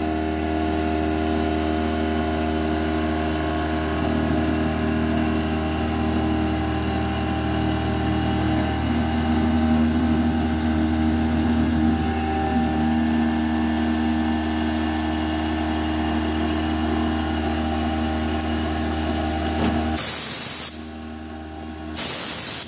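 Langmuir Systems MR-1 CNC mill running steadily, its spindle and carbide end mill cutting 8670 carbon alloy steel under coolant, with several held tones. Near the end come two loud hissing blasts of compressed air, about a second apart, blowing chips off the part.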